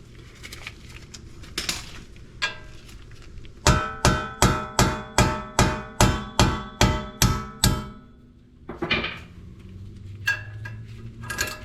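A hammer striking metal: about eleven evenly paced blows, roughly two and a half a second, each ringing like struck steel. A few single clanks of tools come before and after.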